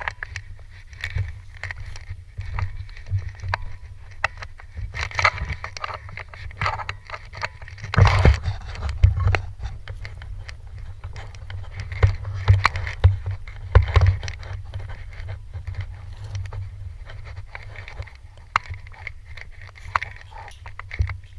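A steady low rumble with many irregular clicks and knocks, typical of a camera carried by a moving player. The loudest knocks come about eight seconds in and again around twelve to fourteen seconds.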